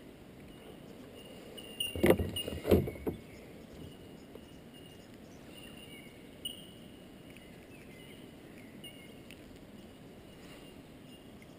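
A short cluster of knocks and splashes about two seconds in as a small bass is brought alongside a kayak, then quiet river background with faint short high chirps.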